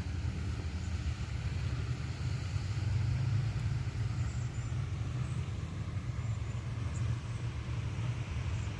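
Low, steady rumble of road traffic, swelling slightly about three seconds in as a vehicle passes.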